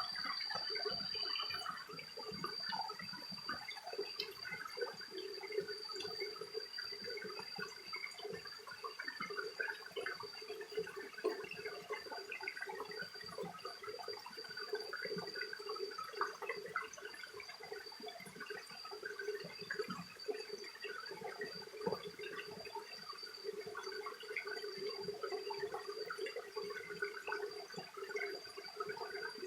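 Small mountain stream trickling and babbling over rocks, a continuous splashy gurgle, with a steady high-pitched tone over it.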